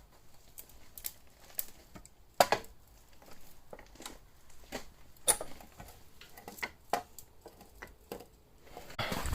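Scattered light clicks and knocks of things being handled, one sharper knock about two and a half seconds in and a low thump near the end; no motor running.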